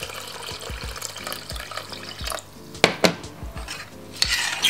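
Water poured into a stainless steel pot of rice and coconut milk, splashing steadily for about two and a half seconds. Then two sharp knocks in quick succession, and a metal spoon starts stirring in the pot near the end.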